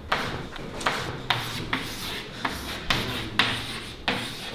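Chalk writing on a chalkboard: a run of about eight scratchy strokes, each starting with a sharp tap and trailing off, roughly two a second.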